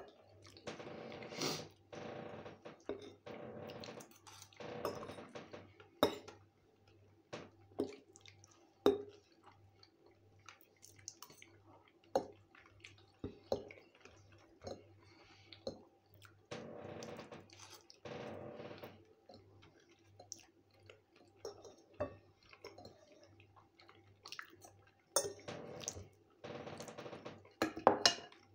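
Close-up chewing of soft fried potatoes and egg, in stretches of a few seconds, with sharp clicks and scrapes of a metal fork on a plate between them.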